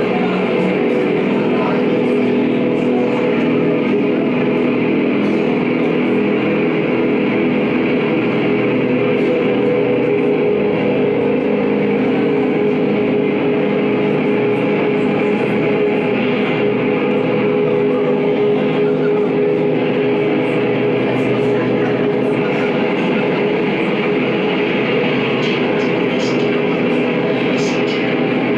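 Black metal band playing live: heavily distorted guitar over drums in a loud, dense, unbroken wall of sound.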